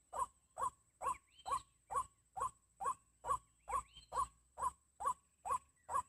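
White-breasted waterhen (wak-wak) calls: a steady, evenly spaced run of short falling notes, about two to three a second, the call used to lure the birds. A few fainter rising chirps come in twice, about a second and a half and four seconds in.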